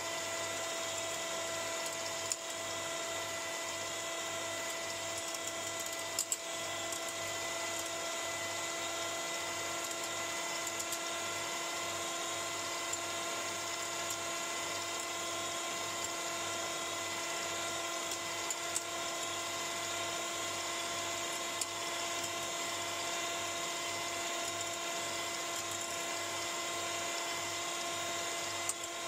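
Electric hand mixer running steadily with a high motor whine, its twin beaters whipping egg whites to a foam in a glass bowl, with a few faint clicks.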